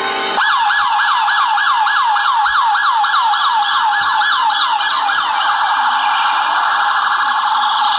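Electronic toy siren sounding, a falling wail repeated about two and a half times a second; a little after halfway it blurs into a denser, continuous warble.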